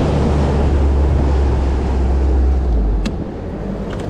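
Outboard motor of a bass boat running under way, its low steady drone under the rush of wind and water against the hull. About three seconds in, the engine drone falls away and the overall level drops.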